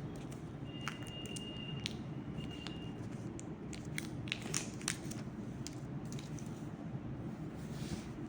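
Large oracle cards being handled and flipped through by hand: scattered soft clicks and crackles, a cluster of them around the middle, over a steady low hum.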